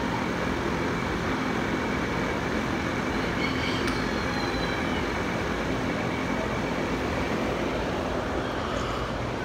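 A steady mechanical hum and rush, even throughout, with a low drone and a faint high steady tone.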